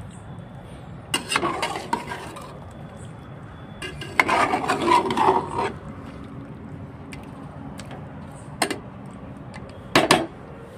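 Spatula stirring a thick chicken curry in a metal pot, scraping through the gravy and against the pot in two bouts of strokes, followed by a couple of sharp knocks near the end.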